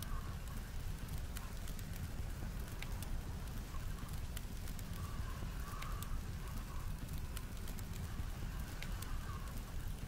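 Wood fire crackling, with sharp irregular pops scattered over a steady low rumble.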